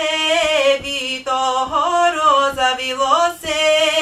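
A woman singing solo in a low voice: the melody of a Bulgarian folk dance song from Thrace, with long held notes decorated by wavering ornaments. She is singing it as a model line for a choir to learn by ear.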